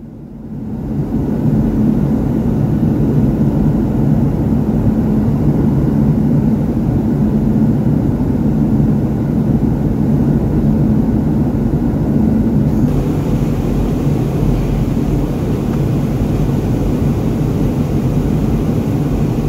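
Cabin noise of a Boeing 737-700 jetliner in cruise: a steady rush of engine and airflow noise with a low hum underneath, fading in at the start. About two-thirds of the way through it turns a little hissier.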